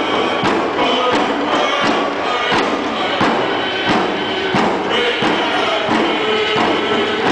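Group singing of a tribal dance song over drums beating a steady beat, about one and a half beats a second, with the murmur of a large crowd.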